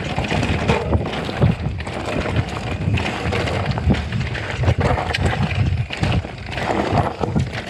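Santa Cruz Heckler electric mountain bike ridden over a loose, rocky trail: a continuous crunch of tyres on stones with frequent knocks and rattles from the bike. Wind rumbles on the microphone.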